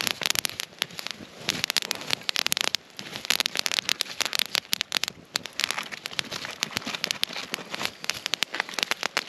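Open wood fire crackling, with a dense run of sharp snaps and pops.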